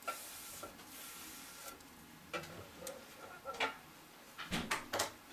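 Light clicks and knocks as a thick wooden cutting board is turned and handled by hand, with a cluster of them near the end. A faint hiss is heard in the first second and a half or so.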